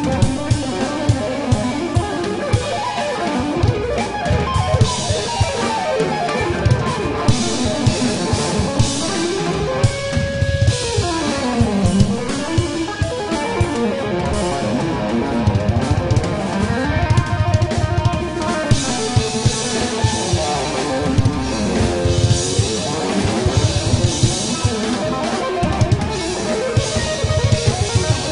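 Live jazz-fusion band playing: a semi-hollow electric guitar solos in fast melodic runs that sweep up and down, over a busy Pearl drum kit groove with bass and keys.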